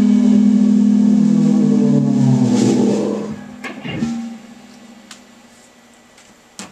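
The final held note of a keyboard-and-drums song, a steady low keyboard tone ringing out and fading away about three seconds in. After it come a few soft knocks.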